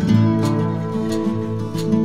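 Instrumental background music led by a plucked acoustic guitar, notes changing every half second or so.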